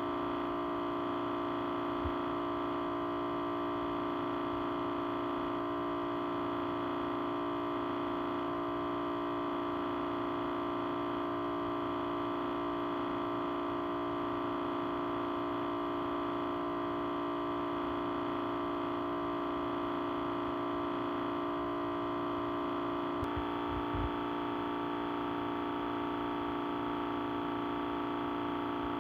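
Audio feedback: several steady tones ringing together as one continuous sustained sound, its mix of tones shifting abruptly about 23 seconds in. A faint low knock is heard about two seconds in and again just after the shift.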